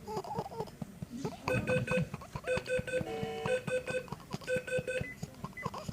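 Electronic beeping in quick groups of three short beeps, repeating about once a second from about a second and a half in, with a brief held electronic tone in the middle. Soft low taps run underneath.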